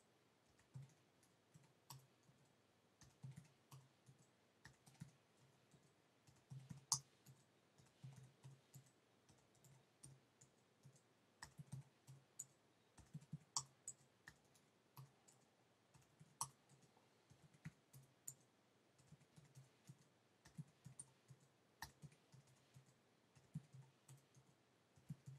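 Faint computer keyboard keystrokes: short bursts of typing as cell entries are keyed in, separated by brief pauses.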